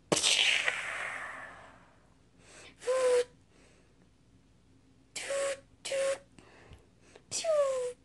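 Mouth-made battle sound effects: a loud explosion burst that fades over about a second and a half, then four short blaster 'pew' shots, the last with a falling pitch.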